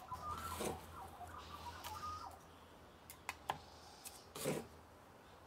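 Sawdust poured from a plastic scoop into the plastic bed of a toy dump truck: a faint rustle for the first two seconds, then a couple of light clicks and a soft knock as the scoop works in the sawdust.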